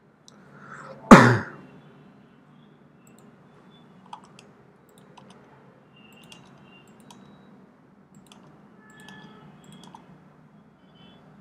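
A single loud, sharp thump about a second in, then faint scattered computer keyboard and mouse clicks.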